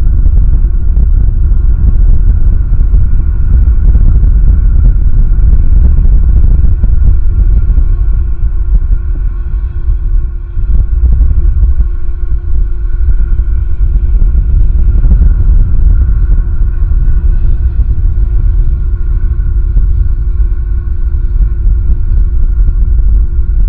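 Strong wind buffeting the nest camera's microphone: a loud, continuous low rumble that eases a little about eight seconds in.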